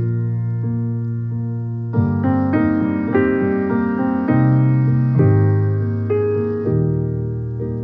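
Background piano music: a slow melody of struck notes over held low notes.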